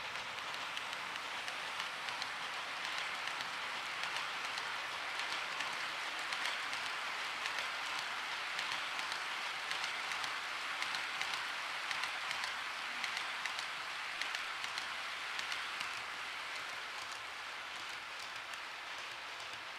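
Model railway freight train of JNR Chiki 7000 flat wagons rolling past on track: a steady hiss of small metal wheels on the rails, peppered with tiny rapid clicks. It eases off slightly near the end as the brake van goes by.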